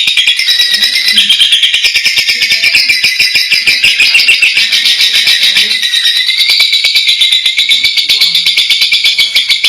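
Lovebird singing one long, unbroken, rapid high-pitched chatter.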